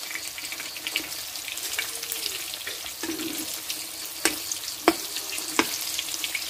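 Meat patties sizzling in hot oil in a wok, with a steel ladle stirring and turning them. The ladle knocks sharply against the wok three times in the second half.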